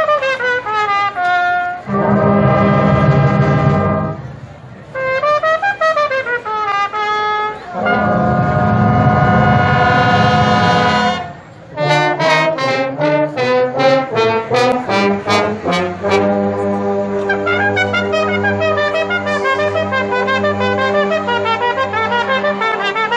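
Brass marching band playing: melodic runs alternate with two long, loud held chords, then about halfway through a faster passage with sharp drum hits gives way to steady low brass notes under the melody.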